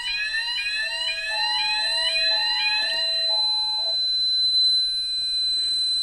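Fire alarm sounders sounding together, several rising sweep tones out of step with one another, each repeating about twice a second, over a steady high tone: the system is in full alarm from a smoke detector test. The sweeps stop about three to four seconds in, leaving the steady tone.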